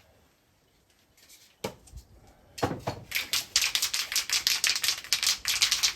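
An aerosol spray-paint can being shaken, its mixing ball rattling in fast, sharp clicks to mix the paint before spraying. A couple of knocks come first, and the rattling starts about two and a half seconds in.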